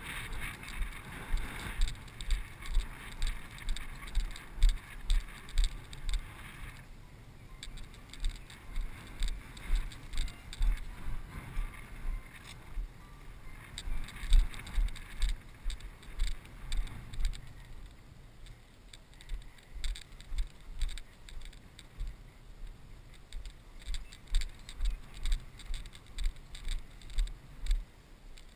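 A person's footsteps walking through grass, heard through a body-worn camera as a steady low thud about twice a second, with rustling and wind noise over them.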